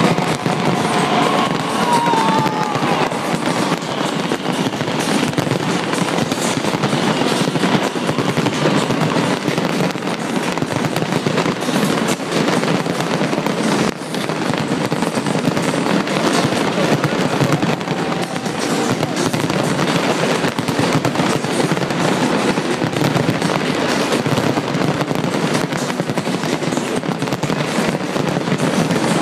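A large fireworks display going off densely and without pause, a continuous rapid crackle and banging of many shells, with the display's music soundtrack playing underneath.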